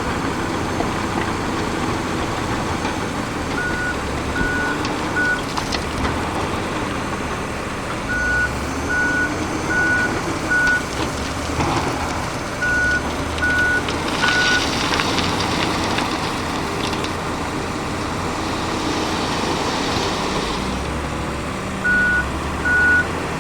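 Heavy diesel truck running with its reversing alarm beeping in runs of four or five beeps, about two a second, with pauses between. Two short hisses come in the second half.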